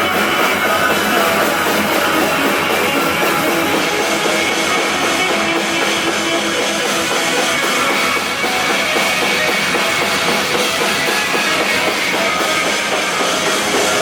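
Live punk band playing loud on electric guitars and a drum kit.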